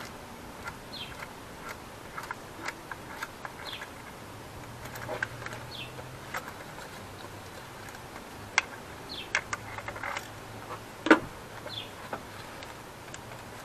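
Scattered light clicks and taps of plastic and metal parts being handled and unclipped under the intercooler of an Acura RDX, with one sharper knock about eleven seconds in. Short high falling chirps recur every couple of seconds in the background.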